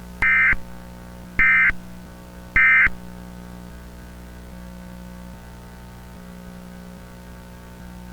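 Emergency Alert System end-of-message signal: three short SAME digital data bursts about a second apart, over a steady electrical hum.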